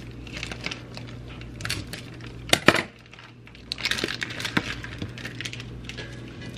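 Kitchen clatter: light clinks and knocks of cookware being handled, loudest in two sharp knocks close together about two and a half seconds in.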